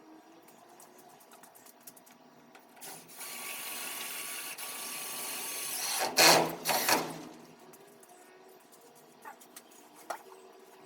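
Power drill running steadily for about three seconds, driving a screw into the garage door's bottom edge, then a few louder short bursts as it finishes.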